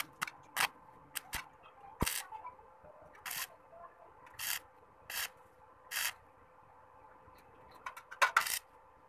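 Stick-welding electrode being struck against sheet steel to start the arc: about a dozen short arc bursts, each a fraction of a second long, in quick clusters near the start and end and a second or so apart in between. A faint steady hum runs underneath.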